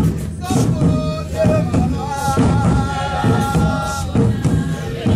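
Group singing of a Swazi traditional dance song, with held sung notes over repeated drum beats and thuds.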